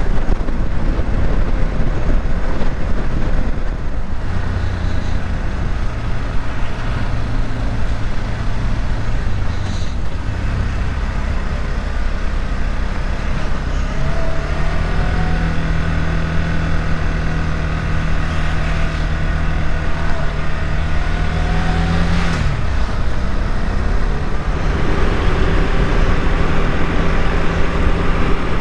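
KTM 390 Adventure's single-cylinder engine running under way at road speed, with wind and road noise. The engine note rises about halfway through, holds steady, then falls back sharply a few seconds later.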